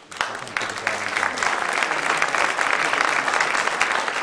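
Audience applauding: the clapping breaks out suddenly, swells over the first second or so, then holds steady.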